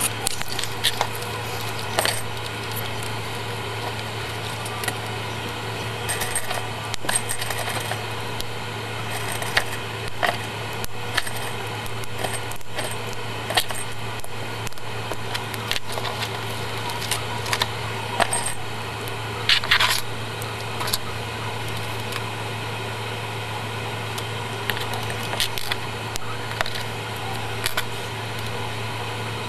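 Small plastic LEGO pieces clicking and clattering as they are handled and snapped together: scattered sharp clicks, a quick cluster of them about two-thirds of the way in, over a steady low hum.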